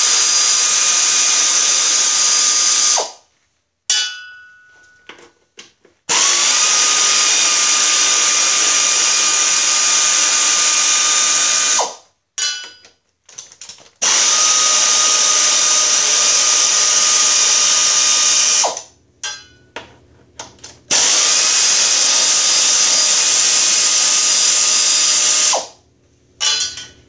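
Pneumatic air ratchet running out bolts in four loud bursts of steady whirring, each several seconds long. Short pauses between bursts carry a few light metallic clicks.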